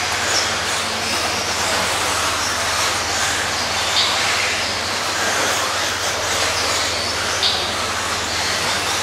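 A pack of radio-controlled 2WD buggies racing on a dirt track, giving a steady whir of motors and tyres. Two brief sharp clacks come about four and seven and a half seconds in.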